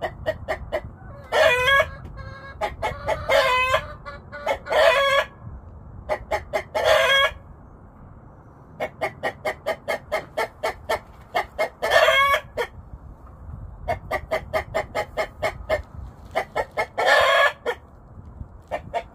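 A rooster calling repeatedly beside the nest box where a hen sits: runs of rapid short clucks, about four a second, broken by about six longer drawn-out squawking calls. The calls are unlike its usual crow, given while it guards the hen's nest and eggs.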